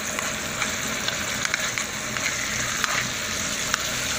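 Minced garlic frying in ghee in a pan: a steady sizzle with many small crackles.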